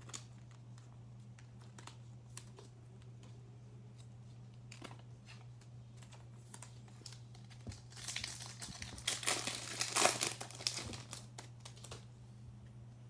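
Foil trading-card pack crinkling and tearing as it is ripped open by hand, loudest from about eight to eleven seconds in, with light handling taps before it over a steady low hum.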